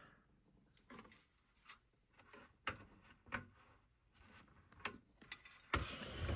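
Faint scattered clicks, taps and rubbing of hands handling an opened HP 54600-series oscilloscope's chassis and mainboard, with a slightly louder handling noise near the end.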